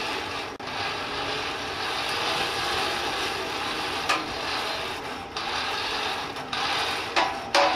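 Coal forge blower running steadily with a mechanical whirr, air rushing through the fire, with a few sharp clicks or knocks about halfway and twice near the end.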